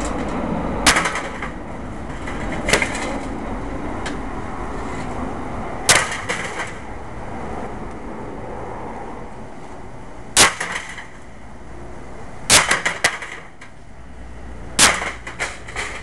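Blunt back of an axe striking a space heater: a string of sharp, loud bangs at irregular intervals, six blows in all, some followed by quick smaller knocks and a brief clattering rattle as the crushed housing shakes.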